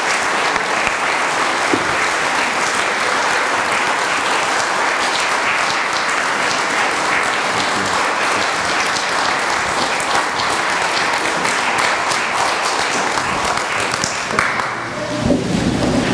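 A congregation applauding: steady clapping from many hands that dies away near the end.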